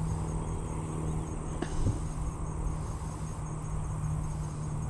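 Insects chirping steadily in tall grass, a high, evenly pulsing note, over a low rumble of wind on the microphone and a steady low hum. A single short click about a second and a half in.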